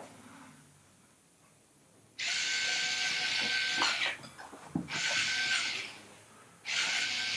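Small handheld power screwdriver running in three short bursts with a steady motor whine while turning screws in a theater seat. The first burst starts about two seconds in, and the last runs on past the end.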